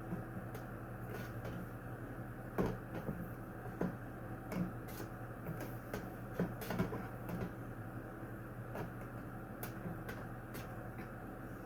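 Light irregular clicks and knocks of box fan parts being handled while the fan is put back together, over a steady low hum.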